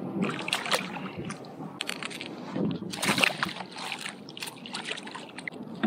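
Water splashing at the side of a kayak, with knocks against the hull, as a landed redfish on a stringer goes into the water and thrashes. The loudest splashing comes about three seconds in.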